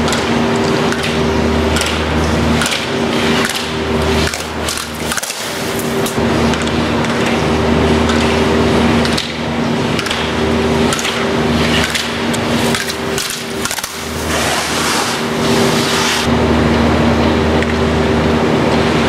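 Steady machinery hum of an indoor ski hall, two steady tones over a low drone, with the hiss and scrape of skis carving on snow and sharp knocks of slalom poles being struck, clustered a few seconds in, around the middle and again two-thirds of the way through.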